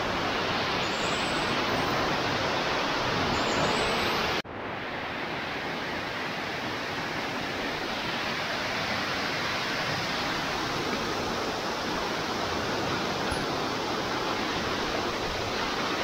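Waterfall running: a steady rush of falling water. It breaks off for an instant about four seconds in and comes back slightly quieter.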